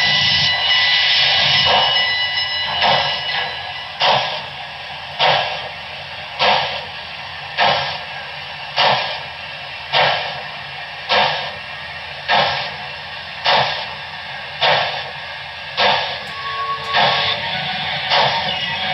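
Sound-equipped HO-scale model of a Southern Pacific GS-4 steam locomotive (Broadway Limited Paragon 4 with Rolling Thunder) playing steam sounds through its onboard speaker. It opens with a steady loud hiss for about three seconds, then gives slow, evenly spaced exhaust chuffs, roughly one a second.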